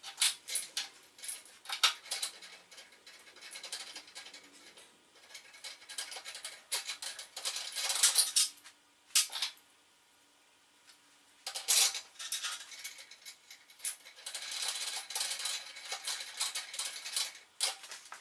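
Small metal parts and hardware clinking and rattling as they are handled, with a run of sharp clicks and jangling, a short pause in the middle.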